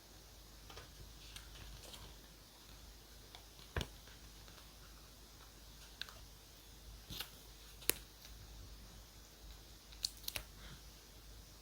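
Scattered sharp clicks and taps of stationery being handled on a desk while decorating a journal, about half a dozen spread through, with a close pair near the end.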